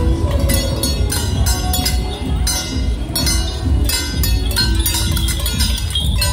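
Chinese temple procession percussion: a drum beating under repeated clashing cymbal and gong strokes, about two to three a second, accompanying a costumed temple-general troupe.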